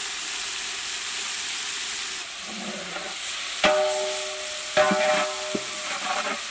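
Sliced onions, green chillies and ginger-garlic paste sizzling in hot oil in a large metal pot. From about halfway through, a metal spatula scrapes and strikes the pot while stirring, and each strike rings.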